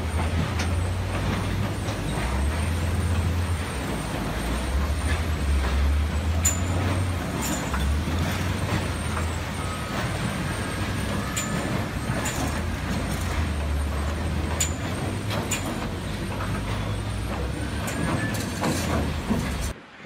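Diesel engine of a Volvo wheel loader fitted with a log grapple, running with a steady low drone that rises and falls with the throttle. Scattered sharp knocks and clatter from the grapple and logs, and a faint rising whine a couple of times.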